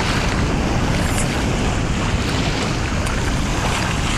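Wind buffeting the microphone in a steady low rumble over lapping sea water, with a few light splashes from a Dogue de Bordeaux paddling through shallow water.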